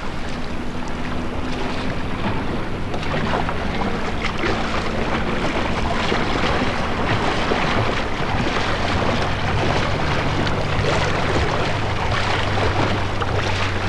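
Wind buffeting the microphone and choppy lake water splashing around a boat on open water, with a steady low drone underneath that shifts in pitch a couple of times.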